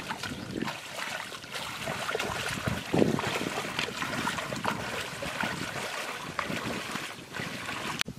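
Footsteps wading and splashing through shallow muddy water in a flooded rice paddy, an irregular run of sloshes with a louder splash about three seconds in. The sound cuts off sharply just before the end.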